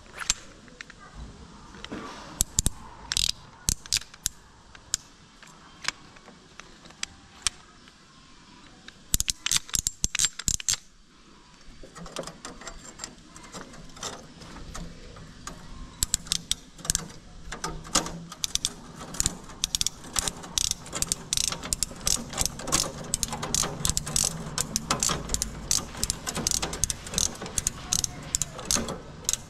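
Hand-cranked steel banding tool tightening a stainless steel strap around a concrete post, its ratchet clicking as the handle is worked. The clicks come in scattered short runs at first, then in a fast steady run from about halfway through.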